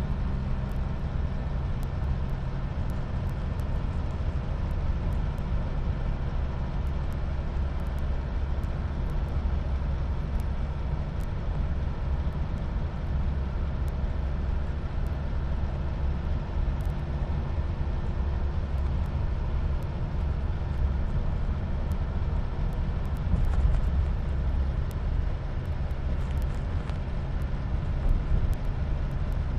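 VW LT35 light truck driving at a steady cruising speed: an even, low engine drone mixed with tyre and road noise.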